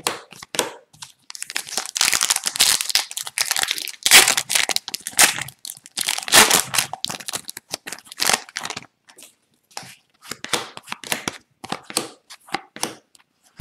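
Foil wrapper of an Upper Deck hockey card pack crinkling and tearing as it is pulled open, for several seconds. Then come a run of short, separate snaps as the cards are flicked one at a time through the hands.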